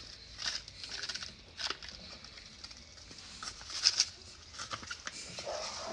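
Seasoning packet being shaken out over a pan of cream sauce and a spatula stirring it in: light, scattered rustles and scrapes, the loudest about four seconds in.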